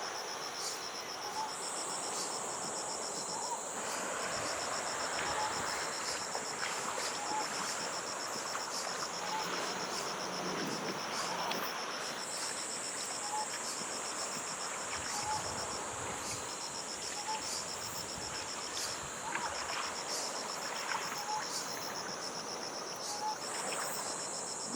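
Insects trilling in chorus: one a rapid, evenly pulsed high trill, another a steady higher buzz that drops out and comes back twice, over the steady rush of surf. Faint short chirps repeat every second or two.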